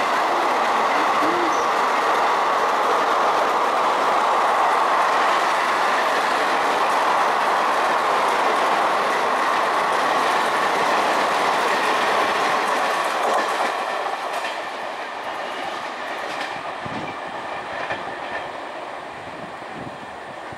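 Express passenger train's coaches passing at speed, a steady loud rush of wheels on the rails. About two-thirds of the way through, the last coach goes by and the sound drops away and fades as the train recedes.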